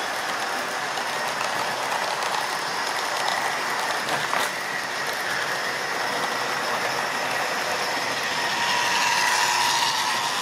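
Model railway train running along the track: a steady mechanical rattle of wheels over rail joints with a running hum. It grows louder near the end as another train passes close by.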